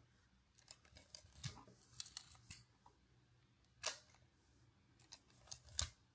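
Leica MP film camera being worked by hand: a few small mechanical clicks, then the sharp click of the shutter release just before four seconds in, then the film advance lever cranked and snapping back near the end.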